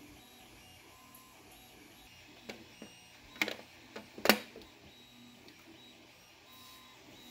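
Sharp plastic clicks from fingers working the small hinged side door of a WPL B36 Ural 1/16-scale RC truck's cargo box: a few light clicks, then the loudest click about four seconds in as the latch releases and the door opens.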